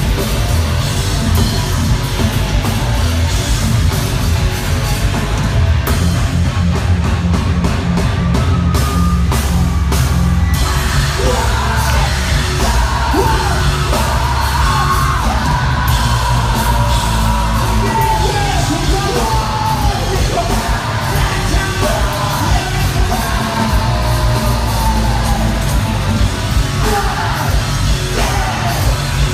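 Live metal band playing loud through a concert PA, with heavy drums and bass and yelled vocals over much of it.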